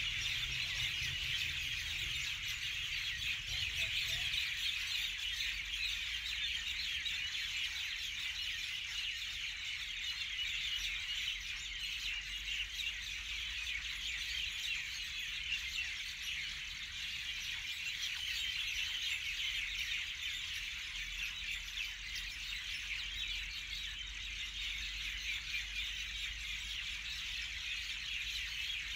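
Continuous dense chirping of many small birds, a steady high-pitched chorus with no pauses.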